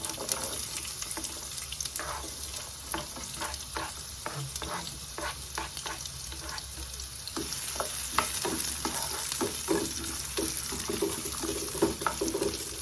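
Chopped onions sizzling in hot oil in a pan, with a steady hiss, while a utensil stirs them and clicks against the pan several times a second.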